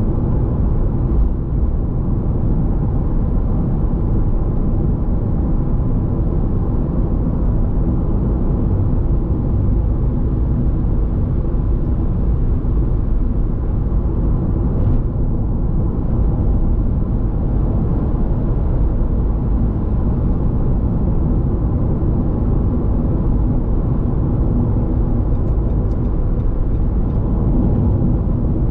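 A car driving at a steady pace: a continuous low rumble of road and engine noise.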